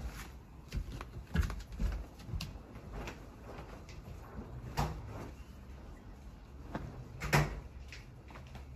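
Scattered light knocks and taps from a paintbrush working glue across a wooden board on a wooden table, the loudest about seven seconds in.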